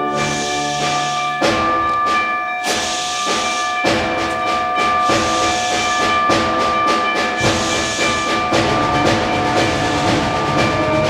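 High school concert band playing a piece that depicts a steam-train chase: held wind chords over repeated drum and cymbal hits.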